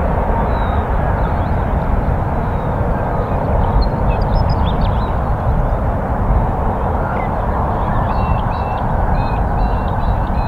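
Airbus A330-343 airliner's Rolls-Royce Trent 700 jet engines giving a steady, loud noise as it touches down and rolls out along the runway. Short bird calls cut through a little after four seconds in and again near the end.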